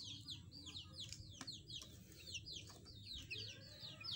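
Young chick peeping: a run of short, high, falling peeps, several a second.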